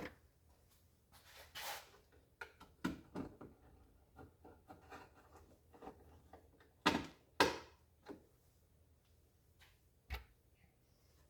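Scattered clicks, taps and rubbing as the tail-light assembly and its bulb socket are handled and fitted back together, with two louder knocks about seven seconds in.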